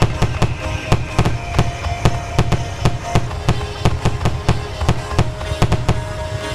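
A rapid barrage of fireworks bangs, several a second, over a heavy low rumble.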